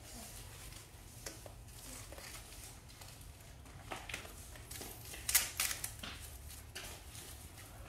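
Scattered snips, clicks and plastic crinkles as the wrapping is cut and pulled off a new child's bicycle, with a louder cluster of sharp scraping strokes a little past halfway.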